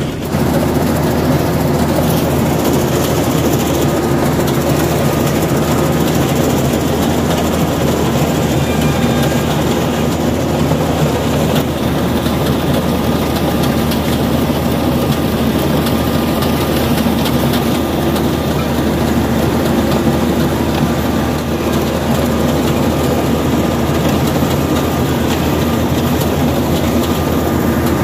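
Rice combine harvester running steadily: a constant engine drone with the clatter of its machinery, unchanging throughout.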